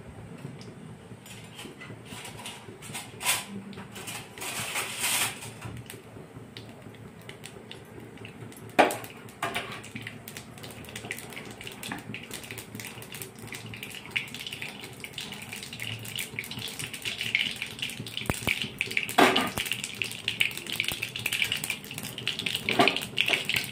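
Mustard and cumin seeds sizzling in hot oil in an aluminium kadhai, the crackle growing denser and louder in the second half as the seeds start to splutter. A few sharp metal clinks break through.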